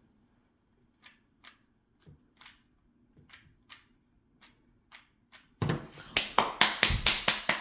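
Plastic Rubik's cube layers clicking as they are turned in quick twists during a timed speed-solve, each twist a short sharp click. About five and a half seconds in, the clicks turn much louder and faster, about four a second.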